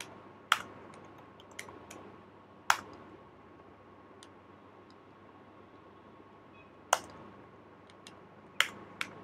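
Computer keyboard keystrokes: scattered sharp clicks a second or more apart, a handful of them loud, over a faint steady hum.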